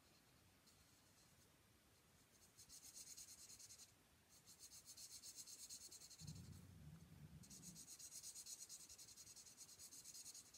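Faint scratching of a felt-tip alcohol marker (Stampin' Blends) on paper in quick, short back-and-forth coloring strokes. It starts a couple of seconds in and comes in stretches with short breaks.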